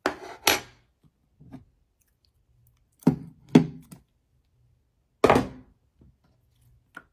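Clear, glossy rainbow slime being scooped and squeezed by hand: about half a dozen short, wet squishes and sticky pops with short quiet gaps between them, the loudest about five seconds in.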